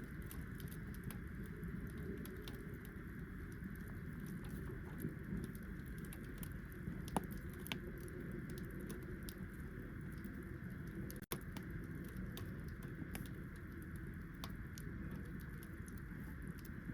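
Wood fire crackling, with many small, irregular pops, over a steady low rumble of wind. One sharper pop comes about seven seconds in.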